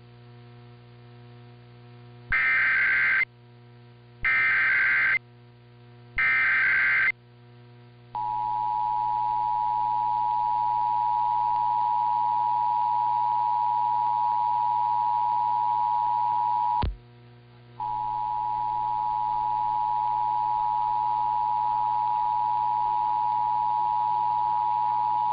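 Emergency Alert System test tones: three one-second bursts of screechy SAME header data, about two seconds apart, then the two-tone EAS attention signal (853 and 960 Hz) sounding steadily. Near the middle of the tone there is a click and a roughly one-second dropout, and then it resumes. A faint mains hum runs underneath.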